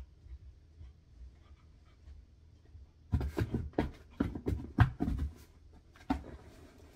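Cardboard box crackling and scraping as a large dog climbs into it and settles. A quick run of sharp cracks lasts about two seconds, then one last knock about a second later.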